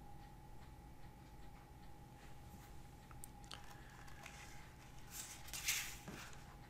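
Quiet room tone with a faint steady tone, a few soft clicks, and one brief noisy rustle about five seconds in.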